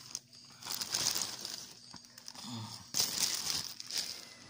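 Plastic courier pouch crinkling as it is handled, in two bouts: about half a second in and again about three seconds in.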